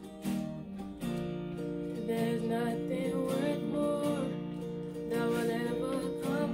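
Acoustic guitar strumming chords, with a girl's voice singing over it from about two seconds in.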